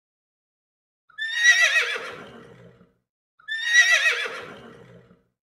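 Horse whinnying twice, the same call both times: each starts high with a quavering pitch and trails off lower over about a second and a half, the first about a second in and the second a little after the middle.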